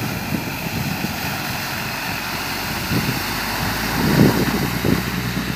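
Old Willys-style jeep's engine running as it drives through a muddy ditch, a steady low hum over a steady hiss. The sound swells about four seconds in as the wheels churn through the mud.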